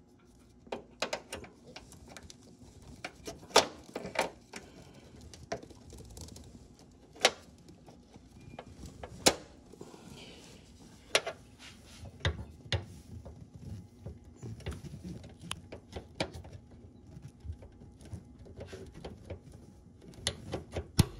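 Scattered sharp clicks and light knocks from a motorized hood strut being handled and its socket ends snapped onto the ball studs. There is a low rumble of handling through the middle.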